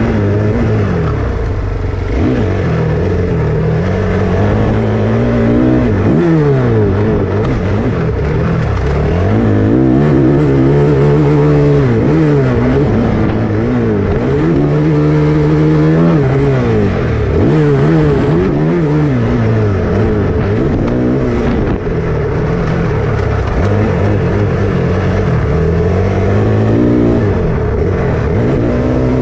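Motocross dirt bike engines revving hard, the engine pitch climbing and falling over and over as the throttle is opened and shut through the jumps, with more than one bike heard at times.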